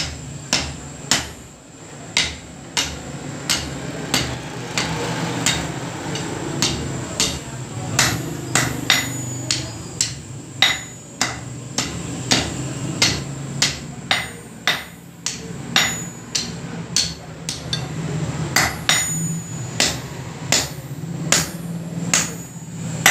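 Hand hammer striking red-hot iron on a steel anvil, a run of sharp metallic blows at about two a second, with a few lighter, sparser blows a few seconds in, as the rod is forged and bent into a ring.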